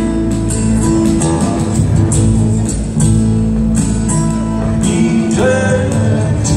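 Live rock band playing: guitar, upright bass and drum kit, with regular drum hits, recorded from the audience in a concert hall.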